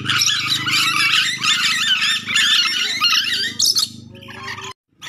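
Ornate lorikeet (nuri dora) giving a rapid run of shrill, squeaky chattering screeches over a steady low hum. The calls thin out about four seconds in and break off in a brief silent gap near the end.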